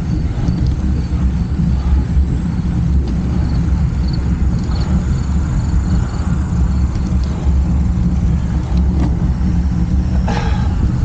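Wind buffeting the microphone of a camera on a moving bicycle: a steady low rumble that doesn't let up, with a brief higher sound near the end.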